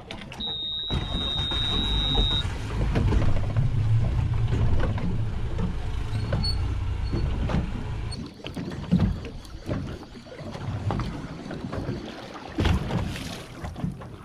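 Deck noise aboard a small fishing boat: a steady low rumble with scattered clicks and knocks, and a high steady tone lasting about two seconds near the start.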